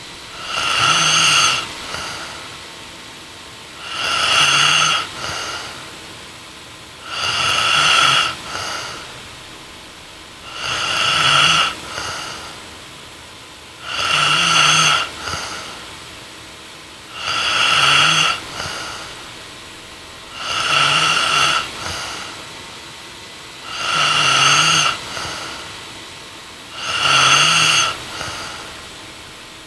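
A young woman snoring in her sleep, in a steady rhythm: nine snores, one about every three and a half seconds. Each snore lasts about a second, with quieter breathing between.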